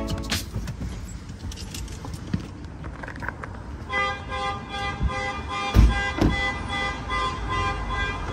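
City street traffic with a long, steady horn sounding from about four seconds in, and a couple of dull thumps.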